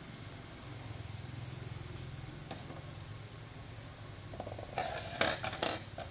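Plastic drinking-straw flowers being handled on a wooden table: a short clatter of light clicks and rattles in the last couple of seconds, over a low steady hum.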